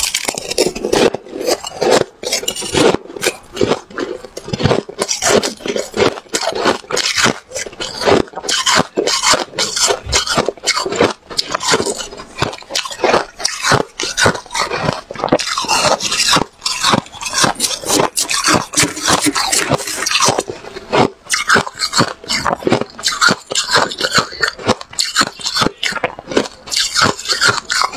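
Freezer frost ice being bitten and chewed, close-miked: a dense, rapid run of crisp crunches, mixed with a metal spoon scraping and scooping the ice.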